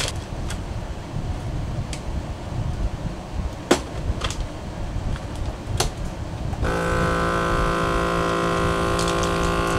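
A few sharp clicks and rustles as a bag is fitted and the lid of a FoodSaver vacuum sealer is closed, then about two-thirds of the way in the sealer's vacuum pump starts and runs with a steady hum.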